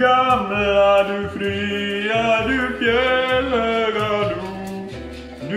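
A man singing unaccompanied in Swedish, in long held notes that waver slightly.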